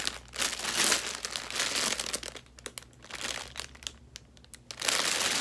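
Clear plastic packaging crinkling as it is handled, loud for the first couple of seconds and again near the end, with only a few faint crackles in between.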